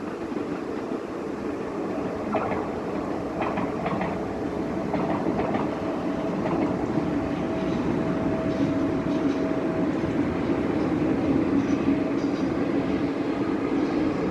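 Passenger train running along the line, a steady rolling rumble with a few clicks in the first seconds and a steady hum through the middle, growing slightly louder toward the end.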